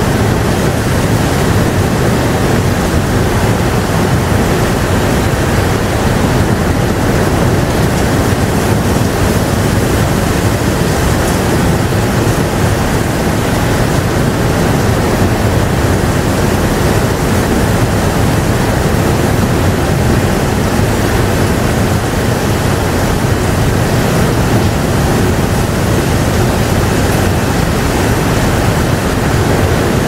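Steady rain falling, a dense even hiss with no breaks or separate drops standing out.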